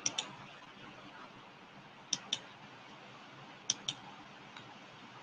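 Three computer mouse double-clicks, each a quick pair of sharp clicks, about a second and a half to two seconds apart, over a steady hiss.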